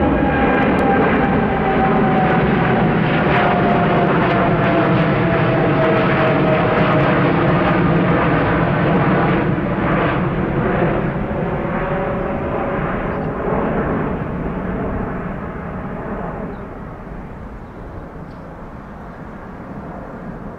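Air Canada Boeing 787's twin jet engines as the airliner climbs away after takeoff: a steady roar and rumble with a whine that slowly falls in pitch, fading away over the last few seconds.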